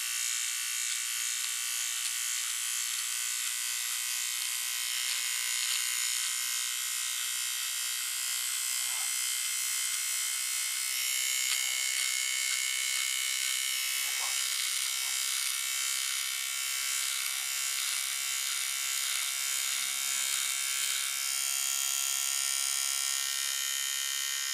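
Silvercrest SMT 3 A1 battery precision trimmer running steadily with a high-pitched buzz, its sideburn-trimming head cutting hair on the back of a hand.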